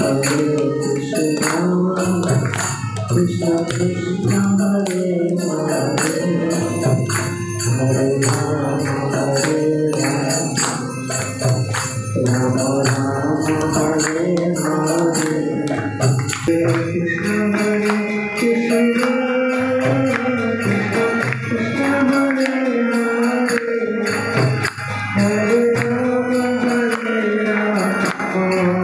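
Devotional kirtan: a group of voices singing together in a repeating chant, with metal hand cymbals striking a steady beat.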